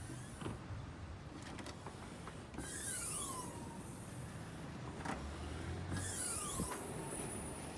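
Toyota C-HR rear hatch being worked, with a few sharp clicks and two longer movement sounds: one about 3 seconds in, the other near 6 seconds, each a hiss with falling, whistle-like sweeps.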